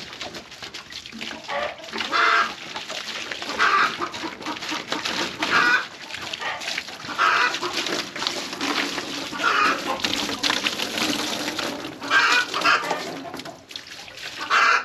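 Chickens clucking loudly, about seven calls a second or two apart, over water splashing and pattering through a wire dog crate as it is poured out of a five-gallon plastic jug.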